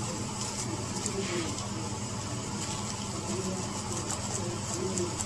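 Steady low hum of running machinery in a rice-cake shop, with a few light clicks and faint voices in the background.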